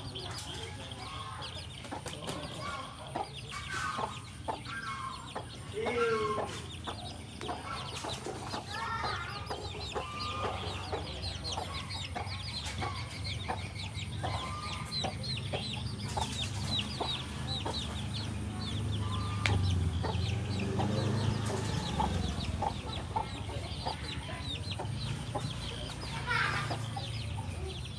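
Broody hen clucking to her brood, with chicks peeping throughout in many short, high notes.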